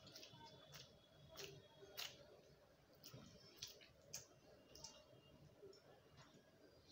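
Faint eating sounds: about ten soft, irregular clicks of chewing and mouth smacks while rice is eaten by hand, the loudest about two seconds in, over a very quiet background.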